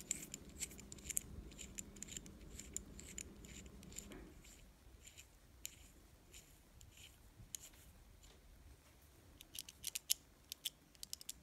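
Light metallic clicks and ticks of small airbrush parts being handled and fitted, the spring retainer going on, with a quick flurry of clicks near the end. A faint low hum underneath stops about four seconds in.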